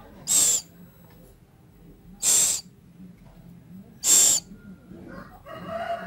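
Scops owl (celepuk) chicks giving three short, loud hissing begging calls, about two seconds apart, during feeding.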